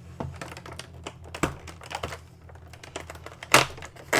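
Irregular small clicks and rustles of an advent calendar compartment and the toy's packaging being handled and opened, with a sharper snap about three and a half seconds in.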